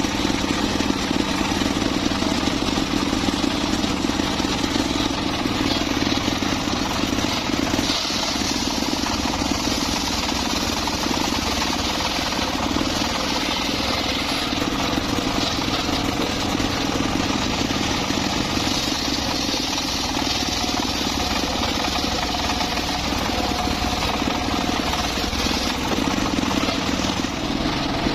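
Circular saw running steadily as it cuts mahogany wood: a constant machine hum under a brighter cutting hiss that swells and eases every few seconds.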